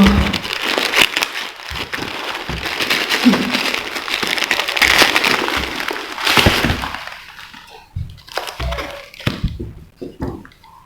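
Parcel packaging being unwrapped by hand, with crinkling, tearing and many sharp crackles for about seven seconds, then quieter scattered clicks and handling knocks.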